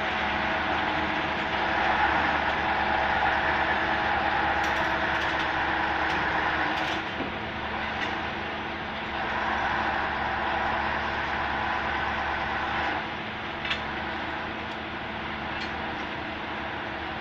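Heavy machinery engine running steadily, with a few short, sharp knocks.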